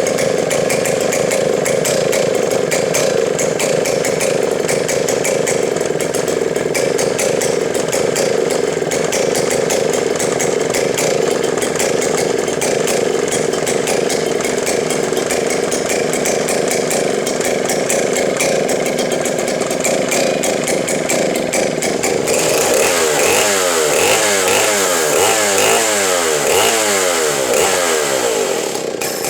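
Stihl 090 chainsaw's large single-cylinder two-stroke engine running steadily and loudly. About three-quarters of the way in, the throttle is opened and closed repeatedly, so the pitch rises and falls over and over.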